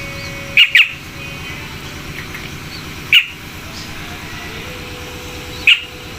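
Young black-naped orioles (kapodang) giving short, sharp calls: two in quick succession about half a second in, another around three seconds in, and one near the end, over a steady background hum.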